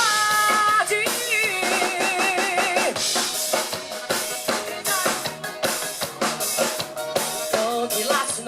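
Live band playing an instrumental passage: a drum kit with kick, snare and rimshots driving under held and wavering melodic lines.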